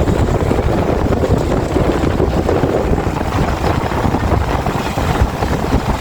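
A vehicle's engine running steadily under way, with wind buffeting the microphone.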